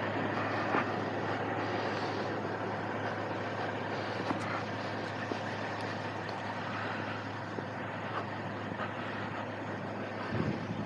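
Heavy diesel engine running steadily at idle, a constant low hum with no change in speed.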